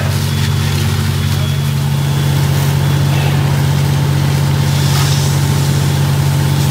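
Fire engine's diesel engine running steadily at raised revs, driving its fire pump to supply the hose lines.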